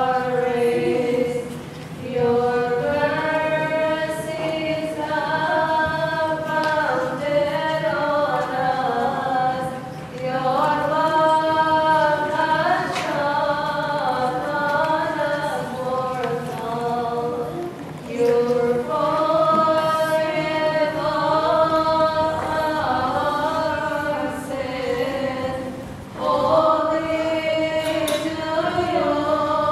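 Voices singing a slow liturgical chant as one melody line. The phrases are held and stepped in pitch, with a short break for breath about every eight seconds.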